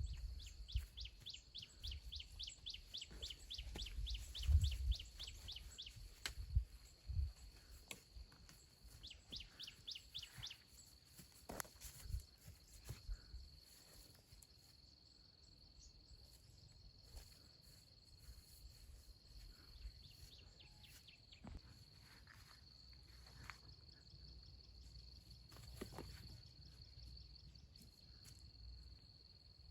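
Countryside ambience: a steady high insect drone throughout, with a bird's rapid runs of chirps in the first ten seconds or so. Scattered soft knocks come through, more of them early on.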